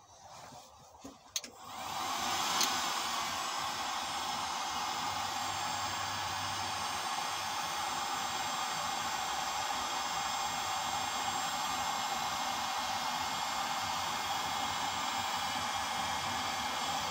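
Handheld electric heat gun coming on after a couple of clicks about a second and a half in, then blowing hot air steadily, used to melt a plastic cable tie for a plastic weld.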